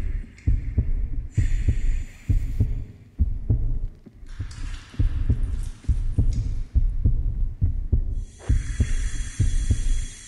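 Storybook app's ambient sound effect: a low, heartbeat-like throbbing that repeats all through, with a hiss higher up that comes and goes.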